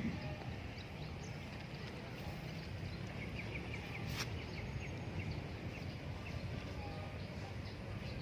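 Outdoor background noise with a steady low rumble. About three seconds in, a small animal gives a short run of rapid, evenly spaced chirps, and about a second later there is a single sharp click.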